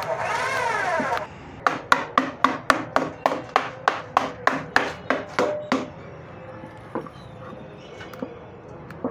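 A brief wavering, pitched sound, then a run of rapid, evenly spaced knocks, about four a second for some four seconds, like hammering.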